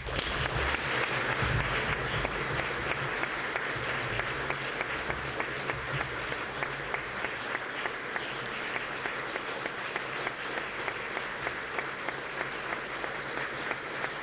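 Lecture-hall audience applauding, breaking out all at once and holding steady, with single claps standing out more towards the end.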